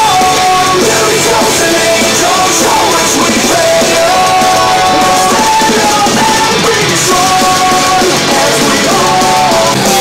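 Arctic S113BT portable Bluetooth speaker playing a rock song with a singer at full volume, loud and steady.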